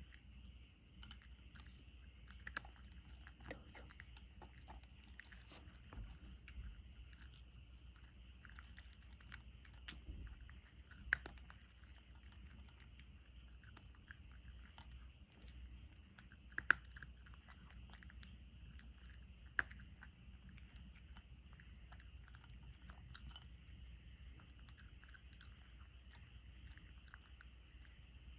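Cat chewing dry kibble topped with bonito flakes: a steady run of faint crunches, with a few sharper clicks in the middle.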